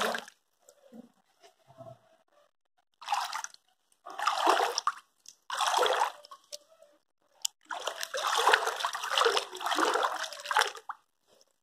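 Bathtub water being splashed and churned into waves, in four bursts: three short ones, then a longer one of about three seconds near the end.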